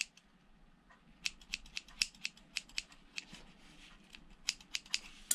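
Small scissors snipping loose threads off a sewn cotton face mask: a quick, irregular run of sharp little snips, several a second, starting about a second in.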